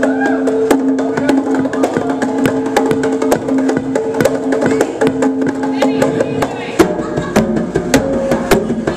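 Live hand-drum solo: a fast, dense run of sharp slaps and strikes on congas and mounted hand drums over a held note from the band. About seven seconds in, fuller bass from the band comes in under the drumming.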